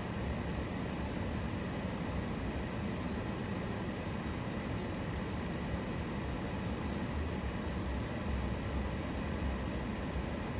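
Car driving, a steady low rumble of road and engine noise with no sudden events.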